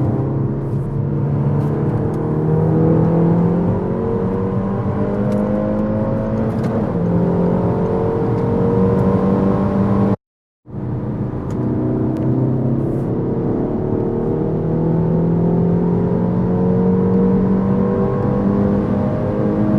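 Peugeot 308 GTi's turbocharged four-cylinder engine pulling hard under full acceleration, its note climbing slowly and steadily. The sound cuts out briefly about ten seconds in and resumes with the same steady climb.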